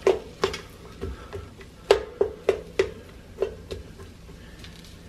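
Wooden spoon stirring chopped shrimp, sausage and onion in a rice cooker's inner pot, knocking against the pot in about a dozen irregular clacks, each with a short ring. The clacks stop about four seconds in.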